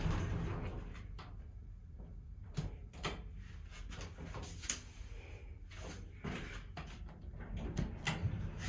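Elevator in operation: a steady low hum with a few scattered sharp clicks and knocks.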